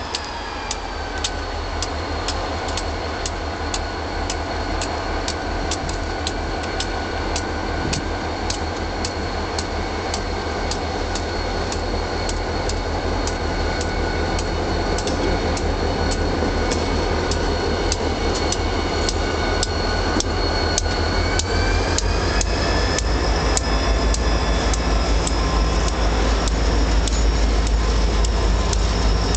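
Two CP SD40-2 diesel-electric locomotives, each with an EMD 645 sixteen-cylinder engine, working under load as they pull a freight train away and pass close by. The rumble grows steadily louder. A high whine drops in pitch at the start and climbs again a little past the middle, over a steady ticking about twice a second.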